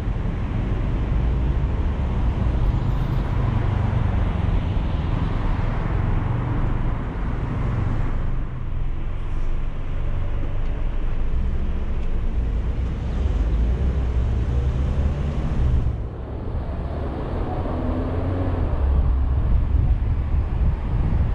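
Car driving on a city road: a steady low rumble of engine and tyre noise with a hiss of wind and road above it, the hiss dropping off suddenly about three-quarters of the way through.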